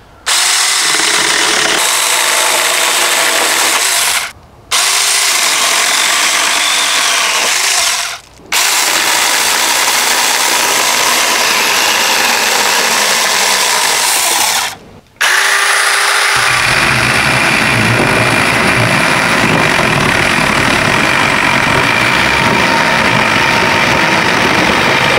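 Saker 4-inch cordless mini chainsaw running, its electric motor and chain cutting branches, in four stretches broken by three short stops. About two-thirds through, the sound grows deeper and fuller.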